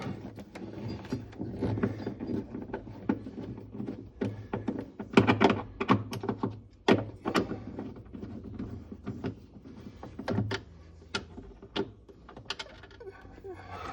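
Irregular clicks and knocks of a hand tool working the small hex nuts and screw that hold a refrigerator's control panel in place.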